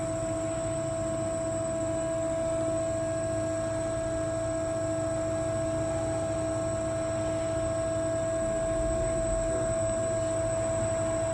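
Carell Comac 3-roll angle bending machine running with its drive powered up: a steady mechanical hum with a constant whine and a low rumble underneath.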